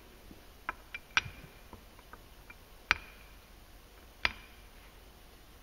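Scattered light clicks and knocks as roller weights are set one by one into the greased ramps of a Yamaha Viking's CVT primary clutch: a few faint ticks in the first two seconds, then sharper clicks about three seconds and just over four seconds in.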